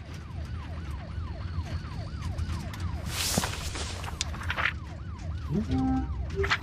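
A rapid siren-like wail, about three falling sweeps a second, over a steady low rumble. A loud swish comes about three seconds in, and the wailing stops about four seconds in.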